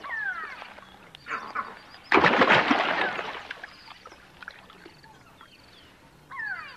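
Crocodile hatchlings giving high chirping calls that fall in pitch, one at the start and another near the end. About two seconds in comes a sudden loud noisy burst lasting about a second, the loudest sound.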